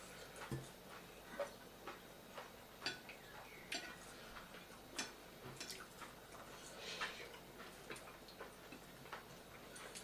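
Eating sounds of chewing: irregular wet clicks and smacks from mouths working on food, one or two a second at uneven intervals.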